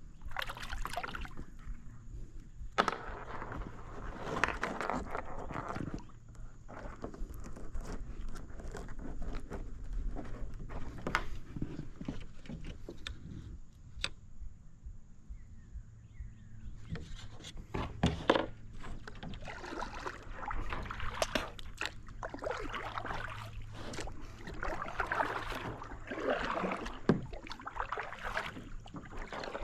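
Water sloshing and knocks and scrapes around a fishing kayak, coming in irregular spells with scattered sharp taps, over a faint steady hum.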